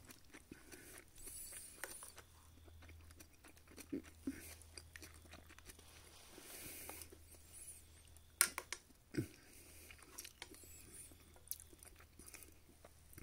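A person eating zosui, rice in soup: quiet chewing with a few sharp clicks of a spoon against the metal pot, strongest about eight and nine seconds in.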